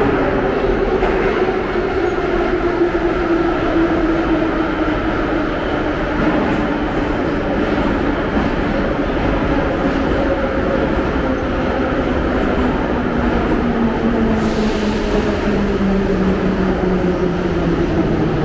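St. Petersburg metro train running loud in the station, its motor whine falling slowly and steadily in pitch as the train slows.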